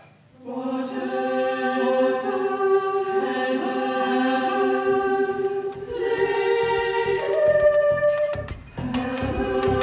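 Choir singing slow, sustained chords without accompaniment. The sound breaks off briefly near the end and then comes back in.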